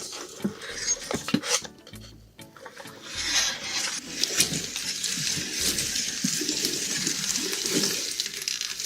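Clattering and rustling handling noises over background music, with a few sharp clicks early on and a denser hiss of rustling from about four seconds in.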